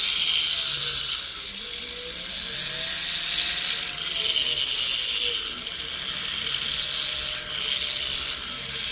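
Hand file rasping across the cut ends of a gold ring shank in slow, even strokes, about one every second and a half, to smooth and level them for a sizing piece.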